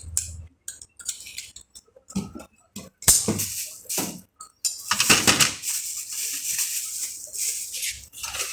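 Small metal parts and tools being handled: scattered clicks and clinks, a sharp knock about three seconds in, then a few seconds of rapid rasping, scraping noise.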